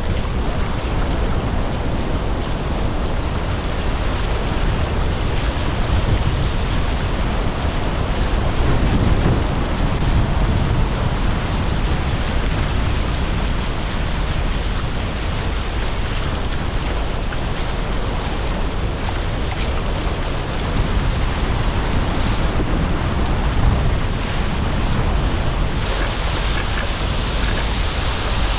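Wind buffeting the boat-mounted camera microphone over water rushing and splashing past the hulls of a Tornado catamaran sailing fast in strong wind. A loud, steady rushing noise that turns hissier for the last couple of seconds.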